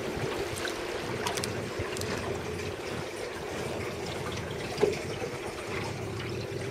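Water trickling and lapping against a small boat's hull, over a steady hum.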